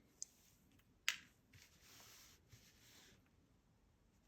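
Near silence broken by faint clicks of small metal lock parts being handled: a light tick, then a sharper click about a second in.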